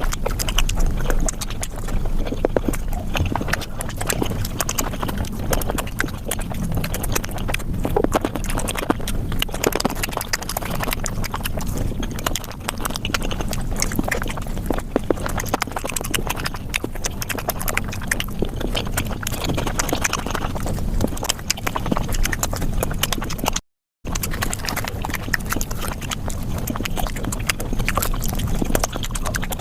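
Close-miked eating sounds played back several times faster than normal: rapid, wet chewing and lip-smacking clicks of someone eating flatbread with curry. One brief silent gap comes near the end.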